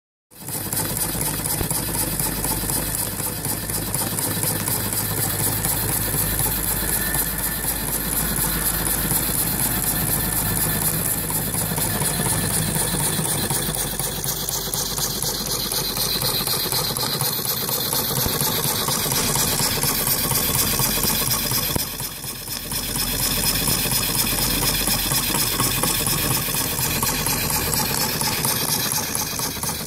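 Homemade single-cylinder steam engine with a copper-pipe cylinder running fast, its piston driving a flywheel: a steady rapid chuffing clatter with steam hissing. It dips briefly in level about two-thirds through.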